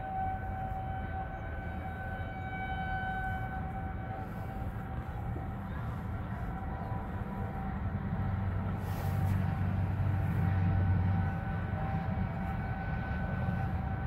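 Outdoor tornado warning sirens sounding a steady tone in a monthly test, its loudness slowly rising and falling as the rotating sirens turn. Under it runs a low rumble that grows louder for a few seconds past the middle.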